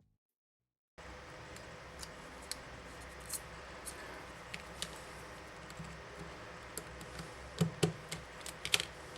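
Small hand tools and the plastic parts of a Sony Ericsson K550i mobile phone being handled during disassembly. Irregular small clicks and scrapes over steady room hum begin about a second in, with a few louder clicks near the end.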